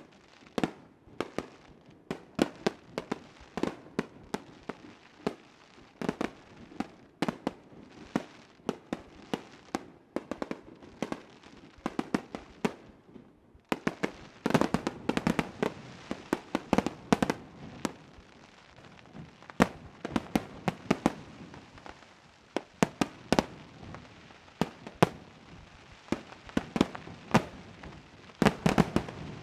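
Aerial fireworks display: a continuous string of sharp bangs from shells bursting overhead, at uneven spacing with echoes between them. The bangs come thickest in a dense volley about halfway through and again near the end.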